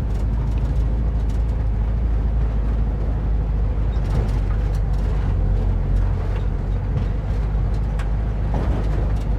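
Air-cooled flat-four engine of a split-window VW bus running steadily as the bus drives a rough dirt trail, with occasional knocks and rattles over bumps.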